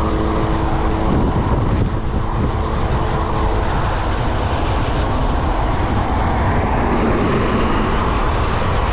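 Steady wind rush over the microphone and tyre noise from a bicycle ridden at about 29 km/h on a highway, with a pickup truck overtaking and pulling ahead near the end.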